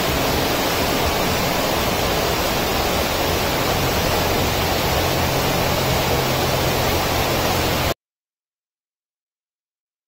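Steady rushing noise with a faint low hum underneath, cutting off abruptly about eight seconds in, followed by silence.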